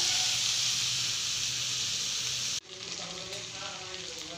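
Pork pieces sizzling in their own rendered fat in a metal kadai, with no oil added: a steady frying hiss. About two and a half seconds in it drops suddenly to a quieter sizzle.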